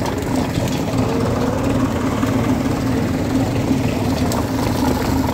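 Sugarcane crusher running at a jaggery unit: a steady mechanical drone from its drive and gearing.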